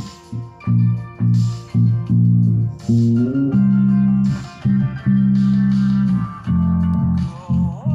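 Instrumental guitar music with a heavy, prominent bass line of repeated low plucked notes. The notes slide up in pitch a little after three seconds in and again near the end.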